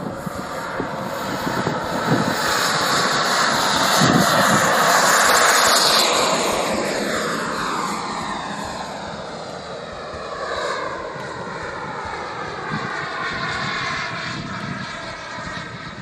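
Model jet's turbine engine on takeoff and climb-out: a loud jet rush that builds to its peak about four to six seconds in, then fades gradually, the sound sweeping down in pitch as the plane climbs away.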